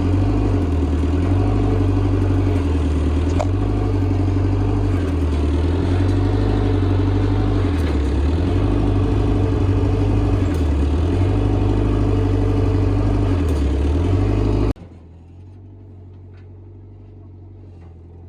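Motor vehicle engine running steadily under load, with a deep drone that wavers slightly in pitch. Near the end it drops abruptly to a much quieter engine sound, like an idle.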